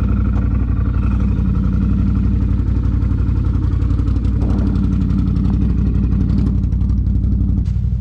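ATV engine running at steady revs while riding, its note stepping down a little near the end.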